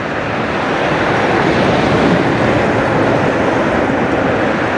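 A steady, even rumble of an Airbus A220 airliner's jet engines on final approach to land, growing a little louder over the first couple of seconds.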